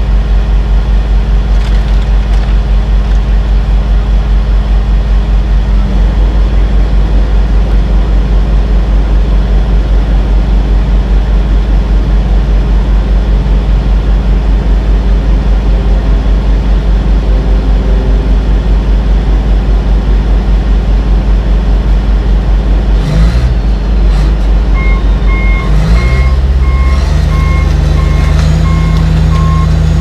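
Heavy diesel idling with a steady low throb. About 23 seconds in the engine note changes and rises, and soon after the John Deere 850J bulldozer's reverse alarm starts beeping about twice a second as the dozer backs up.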